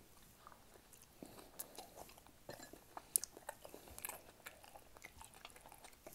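A person chewing food close to the microphone: faint, irregular wet mouth clicks and smacks, a few a second, with one sharper click about three seconds in.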